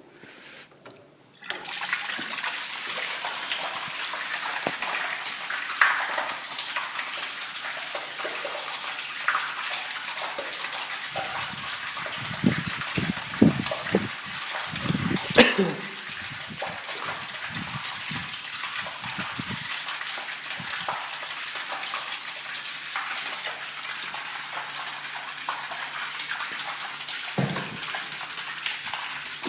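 Water gushing steadily into a tank washer's tank, starting about a second and a half in, with a few knocks and clunks around the middle.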